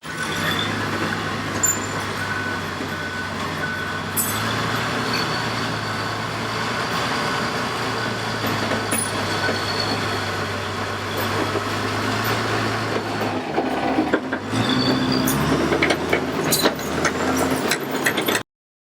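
Heavy diesel machinery running steadily with a low engine hum. About thirteen seconds in the engine note shifts, and a run of knocks and clanks follows before the sound cuts off.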